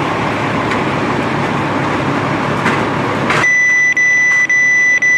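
A steady rushing noise, then, about three and a half seconds in, a loud steady high-pitched electronic beep tone cuts in, broken by brief dropouts about every half second: a fire radio alert tone.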